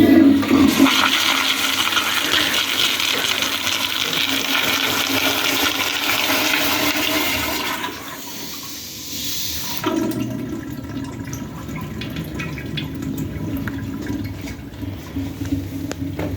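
Hospital toilet flushing, which the title calls intense: a sudden loud rush of water that runs for about eight seconds, drops away, then picks up again a couple of seconds later and keeps running more quietly.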